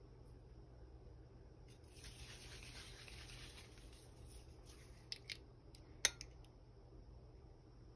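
Faint handling sounds as a butane refill can is picked up and turned over, rubbing and rustling for a couple of seconds. Near the end come two light clicks and then a sharp tap as the can's metal nozzle meets the lighter's fill valve.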